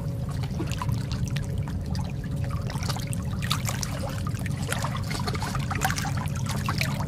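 Water trickling and splashing, many small drips and splashes over a steady low rumble.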